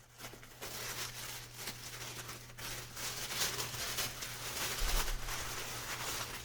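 Paper and packaging rustling and crinkling in irregular bursts of crackle as a bead subscription box is unpacked by hand.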